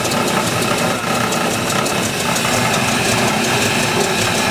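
Pickup truck engine idling roughly on homemade wood gas fed through a propane carburetor: it runs, but not well.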